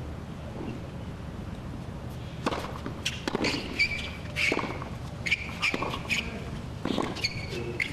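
Tennis rally on a hard court: the ball cracking off rackets and bouncing, about once a second from two seconds in, with sneakers squeaking sharply on the court surface between shots.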